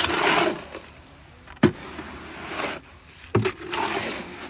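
Concrete mix being worked by hand in a steel wheelbarrow with a long-handled tool: gritty scraping strokes through the mix, three of them, with two sharp knocks in between.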